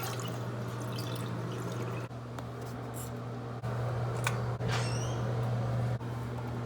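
Water dripping and trickling over a steady low hum, with a few small clicks and a short scrape about four and a half seconds in.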